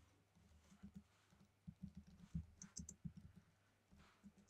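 Faint typing on a computer keyboard: soft key taps in an irregular run, thickest from about two to three and a half seconds in.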